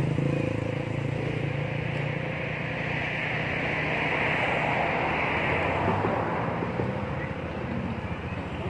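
A motor vehicle engine hums steadily and fades away after about six seconds. A hissing rush swells and fades around the middle.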